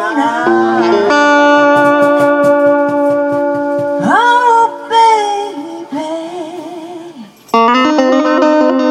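Live music, singing with guitar: a long held sung note with vibrato, a phrase that swoops up in pitch about four seconds in, then guitar chords near the end.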